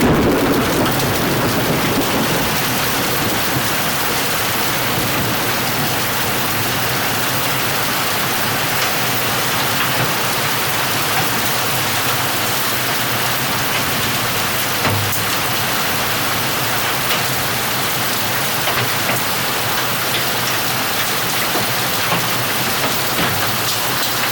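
Heavy thunderstorm downpour: rain pouring steadily as a dense, even hiss, a little louder in the first couple of seconds.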